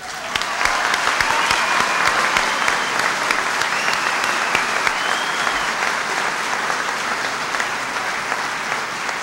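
Large audience applauding steadily, a dense crackle of many hands clapping that starts at once and eases slightly near the end.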